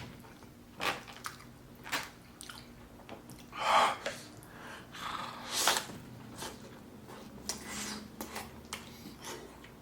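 Close-miked chewing and wet mouth sounds of a person eating, with scattered lip smacks and clicks and a couple of louder short rushes of noise near the middle.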